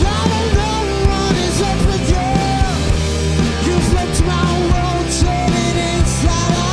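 A rock band playing live: drums keep a steady beat under bass and guitars, with a held, sliding melody line on top.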